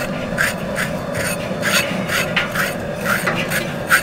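Metal blades scraping scalded hair and scurf off a hog's hide in quick, repeated rasping strokes, about three a second. This is the scraping stage of dehairing a whole hog after scalding.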